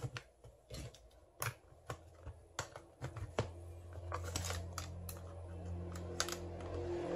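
Scattered clicks and taps of a steel screwdriver against the plastic housing and parts of a cordless hammer drill being taken apart. A steady low hum comes in about three and a half seconds in.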